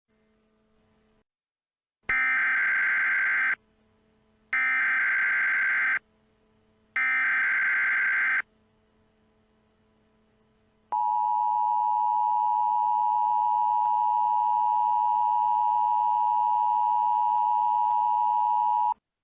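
Emergency Alert System signalling tones: three harsh digital data bursts of about a second and a half each, then, after a short pause, the steady two-tone attention signal held for about eight seconds before cutting off.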